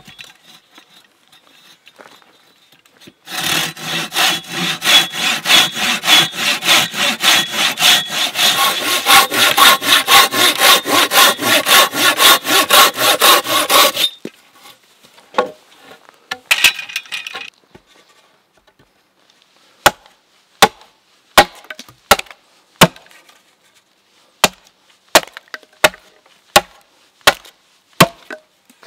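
A Silky folding pruning saw cutting through a branch section on a wooden chopping block, with quick, even rasping strokes, about three a second, for some ten seconds before the cut finishes. From about twenty seconds in, a hatchet splits the wood into kindling with a run of sharp chops into the block, a little under a second apart.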